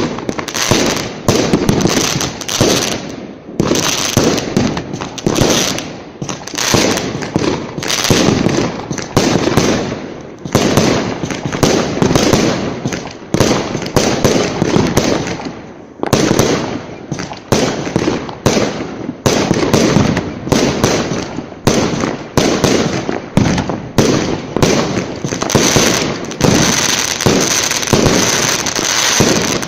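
Fireworks going off in a dense, nonstop barrage of bangs and crackles, with a few brief lulls, picked up by a smartphone microphone.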